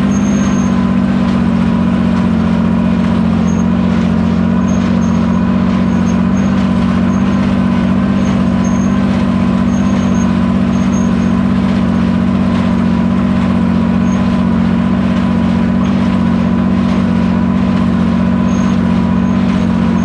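Farmall 460 tractor engine running steadily under load, pulling a New Holland 269 square baler that is working behind it.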